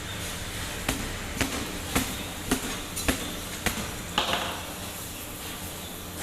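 A series of about seven sharp knocks, roughly two a second, over a steady low rumble, with a short hiss about four seconds in.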